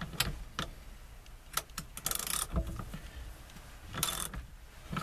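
Stanley socket ratchet clicking in short rapid bursts on its return strokes, working loose a tight 21 mm steering-wheel centre nut, with single metal clicks and knocks between the bursts.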